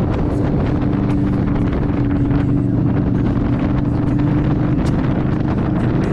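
Indian Scout's V-twin engine running at a steady cruise, its pitch barely changing, with wind buffeting the microphone.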